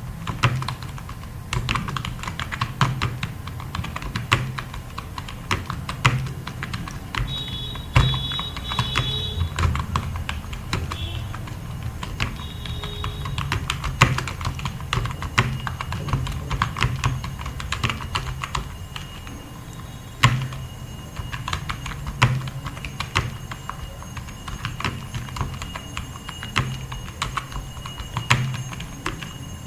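Fast typing on a computer keyboard: a rapid, continuous run of keystroke clicks with a few louder strikes now and then.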